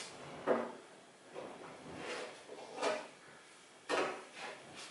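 Plastic spreader scraping body filler across a steel body panel: a series of short scraping strokes, about one a second.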